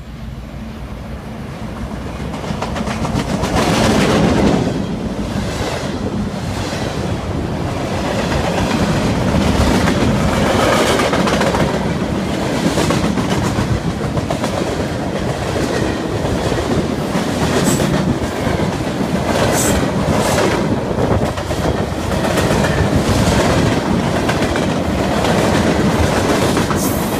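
Freight train passing close by. The diesel locomotive's engine grows louder as it approaches and passes about four seconds in. Then a long line of boxcars rolls past, their wheels clattering over the rail joints in a steady clickety-clack.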